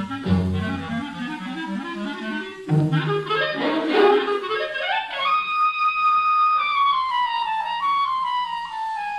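Orchestra playing busy, agitated music with woodwinds prominent. A climbing run follows, then a single high woodwind note held and slowly sliding downward.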